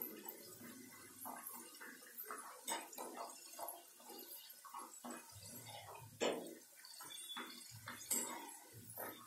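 Potato French fries sizzling and crackling in hot oil in a kadai, stirred with a wire skimmer that scrapes the pan. A few sharper knocks from the skimmer on the metal pan are heard.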